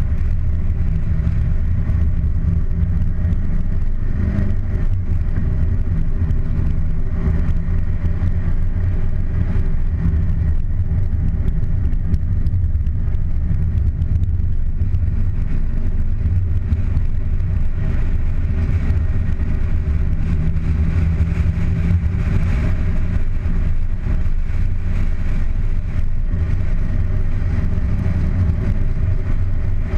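Car engine running steadily as the car drives up a steep, wet mountain road, under a loud rumble of wind and road noise on a microphone mounted outside the car. The engine note strengthens and fades a little as the car climbs.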